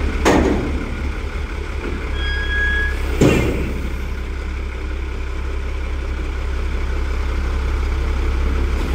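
Peterbilt 320 garbage truck's diesel engine idling with a low, steady rumble while its McNeilus front-loader lift arms come down. Two sharp knocks are heard, one just after the start and one a little past three seconds in.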